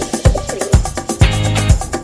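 Background music with a steady, fast beat of deep drum hits, about two a second.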